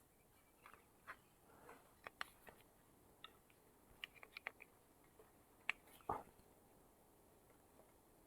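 Faint, scattered clicks and light taps of the Karcher OC3 washer's small plastic parts being handled and worked apart, about a dozen in all, with the loudest tap about six seconds in.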